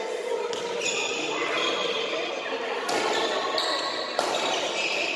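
Badminton rackets striking the shuttlecock during a rally, three sharp hits ringing in a large hall, the second and third about a second and a half apart, with high squeaks of shoes on the court floor between them.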